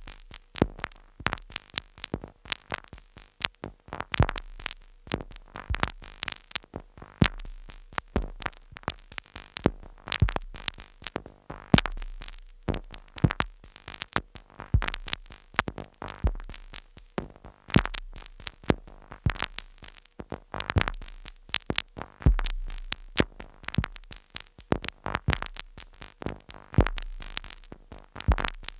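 Two Behringer Neutron analog synthesizers sequenced by a Korg SQ-10 playing abstract glitch noise: dense sharp clicks and noisy blips in a stuttering, irregular rhythm, with a deep bass pulse returning every second or two.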